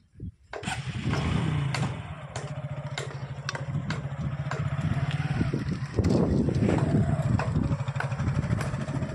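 Small motorcycle engine running as the bike rides along the road, getting louder about six seconds in.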